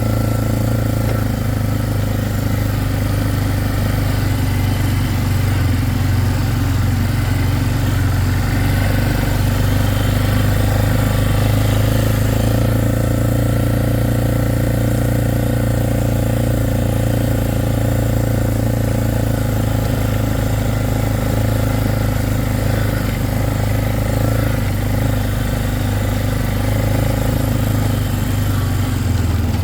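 Vehicle engine running steadily at a constant low hum, heard from on board while it drives slowly.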